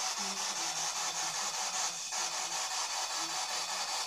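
Steady high hiss of recording noise in a quiet room, with a few faint, short low tones scattered through it.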